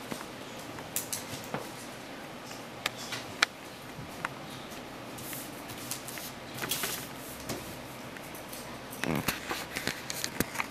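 Classroom room tone with scattered small clicks, knocks and paper rustling as pupils write at their desks; the sharpest click comes about three and a half seconds in, and a cluster of rustling and knocks comes near the end.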